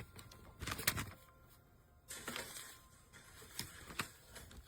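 A few light clicks and short rustling noises, spaced irregularly.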